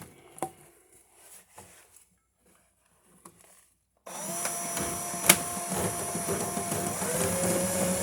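A few light clicks, then about four seconds in a power drill starts spinning a drain-snake cable in a lint-clogged washing-machine drain line, running steadily with a whine that drops in pitch about seven seconds in. A single sharp clank about five seconds in.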